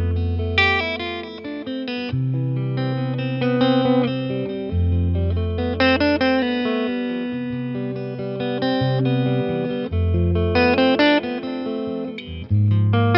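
Eastman T185MX semi-hollow electric guitar played through a Boss Nextone amplifier. Low bass notes are held about two seconds each under a quicker line of higher melody notes.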